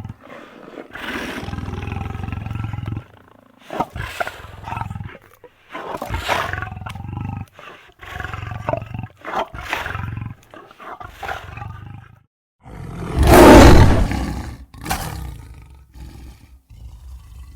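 A string of separate cartoon demon creature growls and roars, each a few seconds or less, with short silent gaps between them; the loudest and longest roar comes about three-quarters of the way through.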